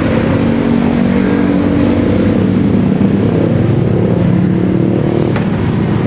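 A vehicle engine running steadily close by, its pitch wavering slightly, with a sharp click about five and a half seconds in.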